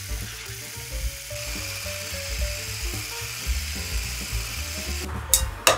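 Polaris hand blender with its whisk attachment running, whipping eggs and sugar into a foam in a glass bowl: a steady high whine, with two sharp clicks near the end.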